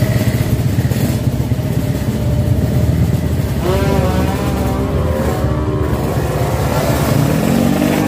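Drag-racing motorcycle engines running loudly, revving up about four seconds in and again near the end.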